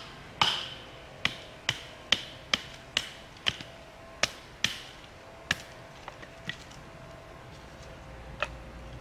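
A stick being split into kindling by striking it with a wooden baton: sharp wooden knocks about two a second for the first five seconds or so, then a few lighter knocks.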